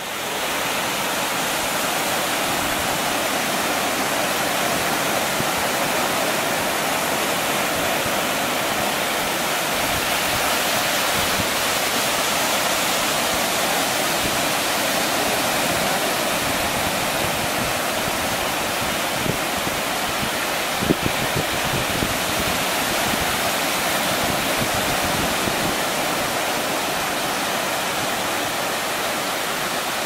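Steady rush of ocean surf breaking on the beach, with a few faint clicks about two-thirds of the way through.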